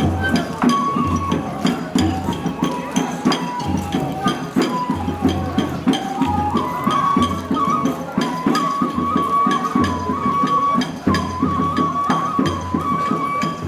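Japanese festival ohayashi music: a bamboo flute playing a held, stepping melody over repeated deep drum beats and quick sharp percussion strikes.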